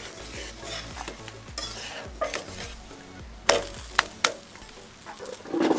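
Ragi rotti sizzling on a black iron pan over a wood fire while a steel spatula scrapes under it and flips it. A few sharp clicks of the spatula against the pan come about three and a half to four seconds in, and a louder burst of noise comes at the very end.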